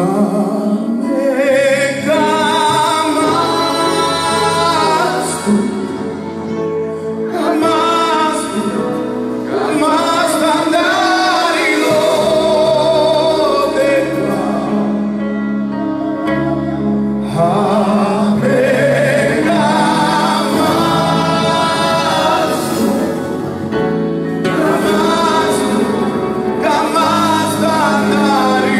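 Live gospel worship music: men singing into microphones in phrases of a few seconds, over held accompanying chords.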